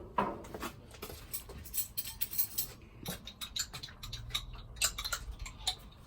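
Irregular light clicks and taps of food and utensils being handled while a burger is assembled, with a sharper knock just after the start.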